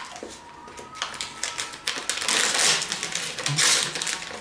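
Plastic wrapper of a Marabou chocolate bar crinkling and crackling as it is handled in both hands, loudest in the second half.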